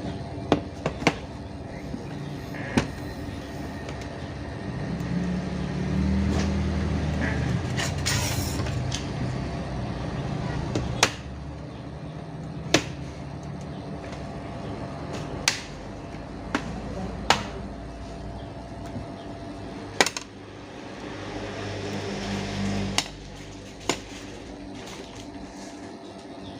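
Scattered sharp clicks and taps, a dozen or so a second or two apart, from handling a laptop and small tools while opening it up, over a low steady hum. A low rumble swells twice, about five seconds in and again around twenty-one seconds.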